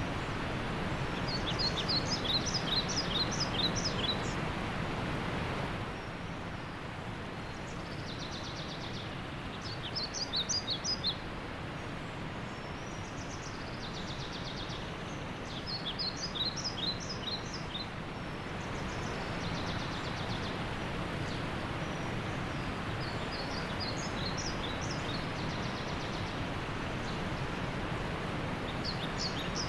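Steady rushing of a waterfall, with a bird singing over it: short phrases of quick, high chirps that come back about five times, every several seconds. The rush drops a little about six seconds in.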